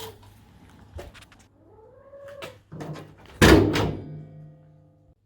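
A few short rising-and-falling squeaks, then a loud door thunk about three and a half seconds in that rings briefly.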